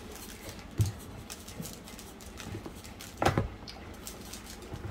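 Light knocks and taps from a seasoning shaker being shaken and tapped over eggplant slices: one knock about a second in, a quick cluster just past three seconds, and another near the end, with faint ticking between.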